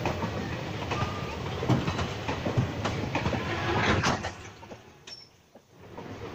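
Indian Railways passenger coaches rolling past, the wheels knocking irregularly over the rail joints. The sound falls away sharply a little after four seconds in and comes back near the end.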